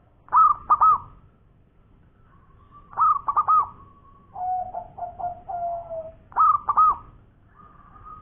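Zebra dove (perkutut) cooing: three loud phrases of two or three quick arched notes, a few seconds apart. In the middle there is a lower, rolling coo.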